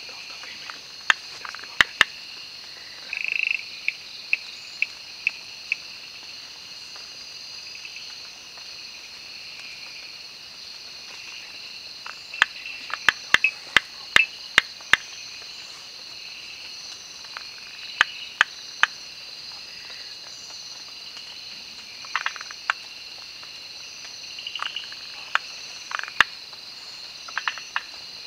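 Frogs calling in short, sharp clicks, some single and some in quick runs, over a steady high-pitched chorus of crickets and other insects.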